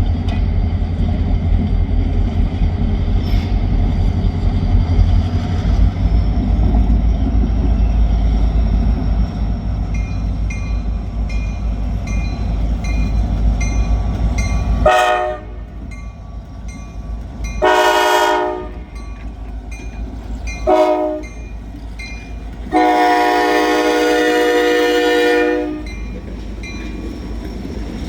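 Diesel freight locomotive horn sounding four times, the last blast held about three seconds, after a steady low rumble with faint regular ticking.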